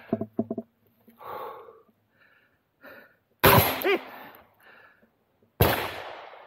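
Two loud gunshots during a practical-shooting stage, about two seconds apart, each trailing off over a second. Lighter clicks and short breathy sounds come before them.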